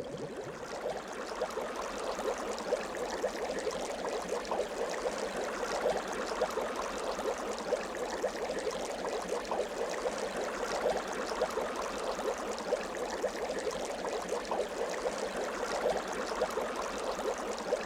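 Running water burbling steadily, with many small splashes and crackles over an even rush.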